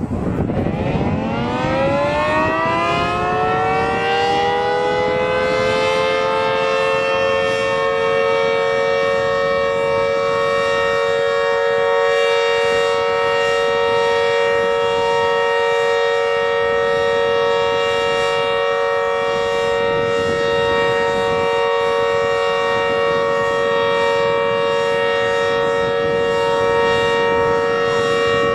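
Warning siren winding up, its several tones gliding upward together over the first five seconds or so, then holding a steady chord.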